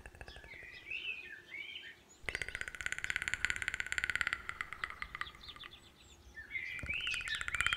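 Small songbirds calling: short warbling chirps, and a fast rattling trill from about two to five seconds in.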